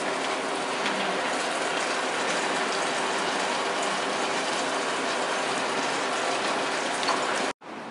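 Beer-battered chicken pieces deep-frying in hot oil in a small saucepan, with a steady sizzle and crackle. It cuts off abruptly near the end.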